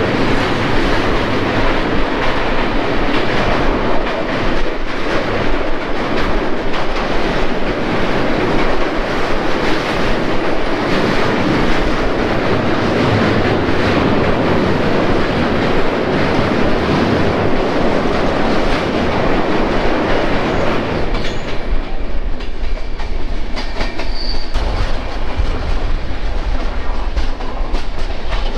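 Passenger train running at speed, heard from an open carriage door: a loud, steady clatter and rumble of wheels on rails while crossing a steel girder bridge. About three-quarters of the way through, the sound drops to a lower, quieter rumble.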